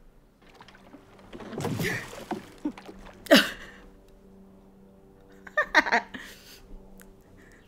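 A woman laughing in short breathy outbursts: a loud one about three seconds in and a run of quick bursts around six seconds, over faint steady tones.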